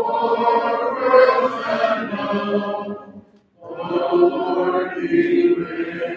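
Congregation singing a hymn a cappella, many voices and no instruments, in two phrases with a short pause for breath about three seconds in.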